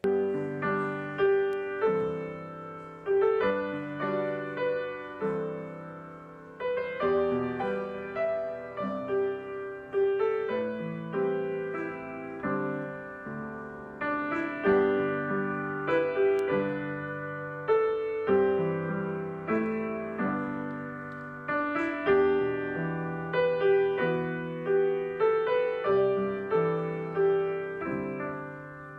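Solo piano music, a slow, gentle piece of chords and melody, each note struck and then fading.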